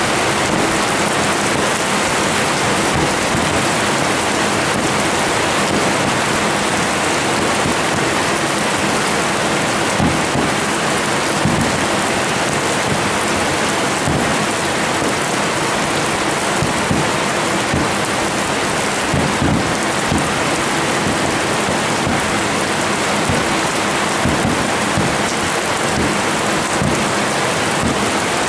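Fireworks display: a dense, steady crackle with deep booms now and then.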